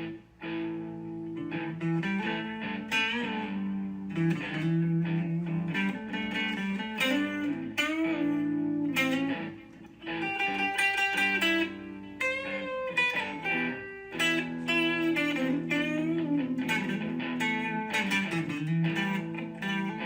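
Background music led by plucked guitar, picking out a melody over held chords.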